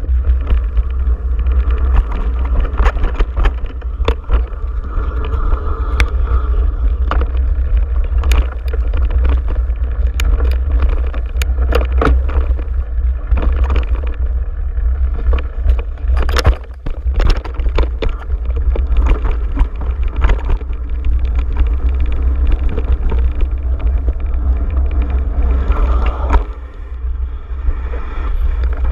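Mountain bike riding down a dirt singletrack: tyre noise and frequent clicks and rattles from the bike over bumps, with a louder clatter about halfway, under a constant low wind rumble on the microphone.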